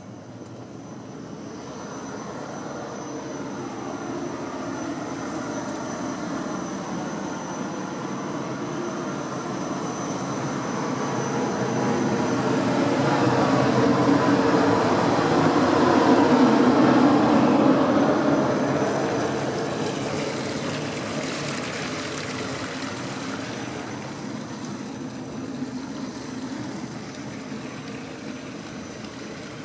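Engine noise of a passing craft, swelling for about fifteen seconds to a peak and then fading away, over a faint steady hum.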